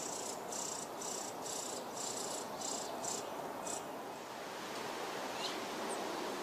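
Nestling songbirds begging with short, high-pitched calls, about three a second, while being fed; the calls stop about four seconds in. A single faint chirp follows near the end.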